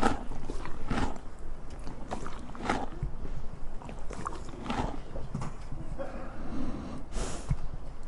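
A donkey eating, chewing with crunchy bites about once a second, and a short breathy snort about seven seconds in.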